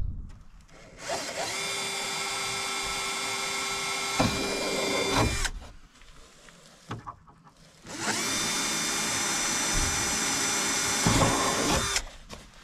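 Cordless drill boring holes through a fibreglass bumper in two runs of about four seconds each, the first starting about a second in and the second about eight seconds in. Each run spins up to a steady whine and cuts off suddenly.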